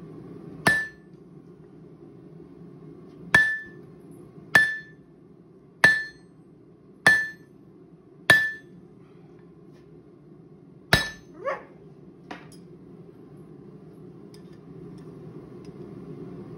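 Hand hammer striking a red-hot canister-Damascus billet on an anvil: seven sharp, ringing blows, most about a second apart, with a longer pause after the first. A steady faint low hum runs underneath.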